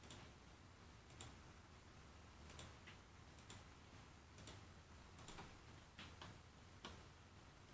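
Near silence with faint computer mouse clicks at irregular intervals, about eight in all.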